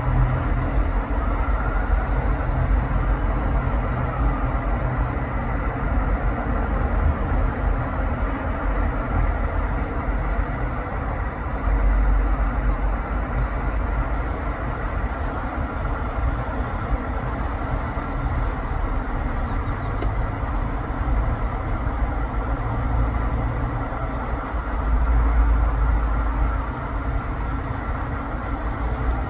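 Road traffic at a busy junction: a steady rumble of passing cars, vans, lorries and buses, swelling louder twice.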